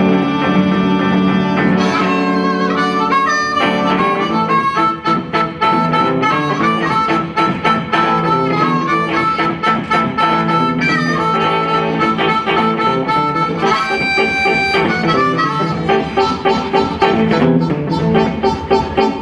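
Blues harmonica solo, cupped in the hands and played into a microphone, with held and bent notes over semi-hollow electric guitar accompaniment. Near the end a steady rhythmic pulse comes forward.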